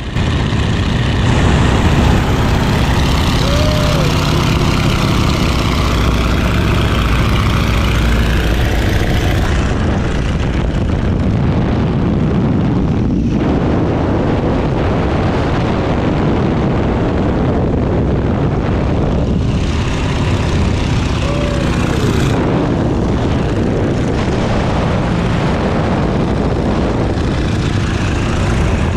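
Boeing Stearman biplane's radial engine and propeller running with loud wind rush, heard from the open cockpit during aerobatic maneuvers. The sound is a steady low drone under rushing air. The high hiss fades about ten seconds in and comes back around twenty seconds in.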